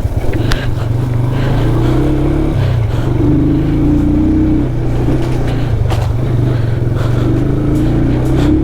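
Motorcycle engine running at low, fairly even revs while riding an off-road trail, its pitch shifting a little as the throttle changes, with a few sharp knocks.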